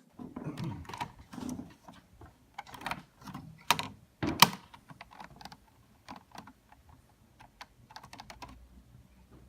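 Irregular clicks and knocks at an uneven pace, the loudest a few seconds in, thinning out later, with a faint low hum coming in near the end.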